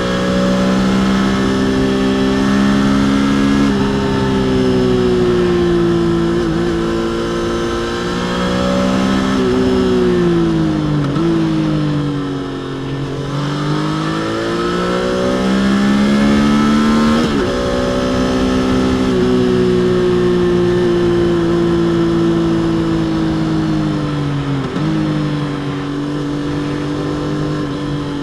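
Stock Triumph Trident 660 inline three-cylinder engine running under way, mostly holding a steady pitch with brief steps at gear changes. Near the middle it eases off with a falling pitch, then pulls back up.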